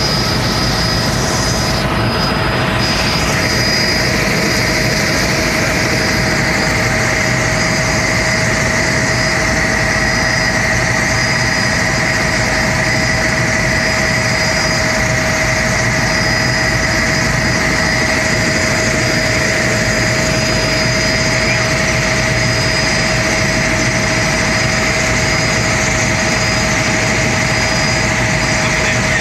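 Helicopter in cruising flight heard from inside the cabin: a steady, loud engine and rotor drone with a constant high whine over it.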